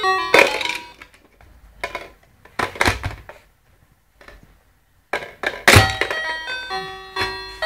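Toy telephone playing an electronic tune of beeping notes, which stops about a second in and starts again about five seconds in. Several sharp plastic knocks in between, with one loud knock as the tune starts again.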